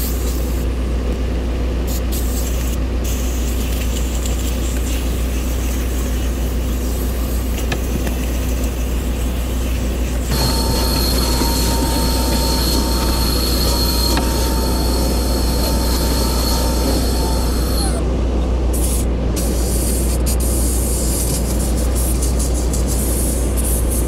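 Steam cleaner jetting steam onto a truck cab floor, a steady hiss over a deep hum. About ten seconds in a vacuum takes over with a steady high whine, which stops about eight seconds later as the steam hiss returns.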